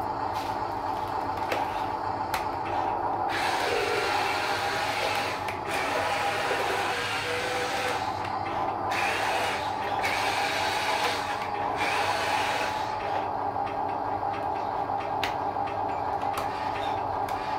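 Electric drive motor and gearbox of a Huina radio-controlled dump truck whirring with a steady gear whine. The whir swells and drops several times as the truck drives and manoeuvres, with light clicks.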